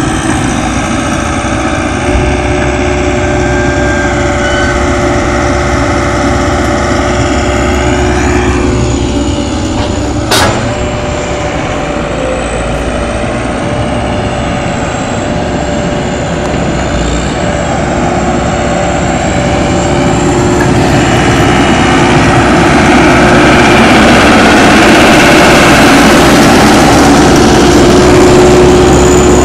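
Case 9010B excavator's rebuilt diesel engine running steadily, with a sharp click about ten seconds in. The engine gets louder and harsher over the last third.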